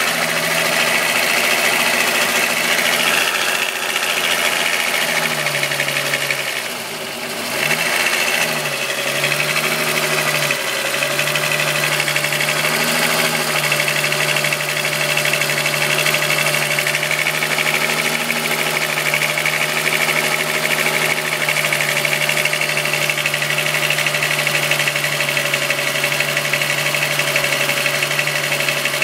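Volkswagen Golf VR6 2.9 engine running at idle, with the rubbing, chain-like noise that the owner says got louder after he replaced the upper hydraulic timing-chain tensioner. The engine note dips briefly and recovers about a quarter of the way in, then holds steady.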